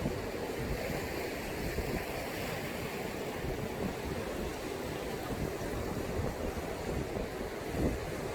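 Sea surf: waves breaking and washing on the shore in a continuous rush that swells and eases, with one slightly louder wash near the end.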